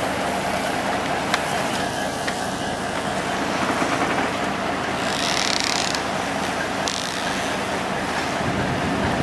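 Steady mechanical drone with a constant noisy hiss, a brief louder hiss about five seconds in, and a couple of light clicks.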